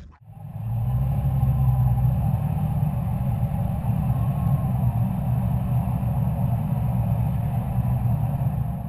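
Powerboat engine running at a steady speed, a low even drone with no change in pitch.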